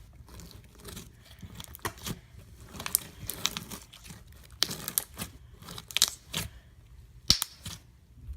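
Slime being stretched and squished by hand, making irregular sharp pops and crackles.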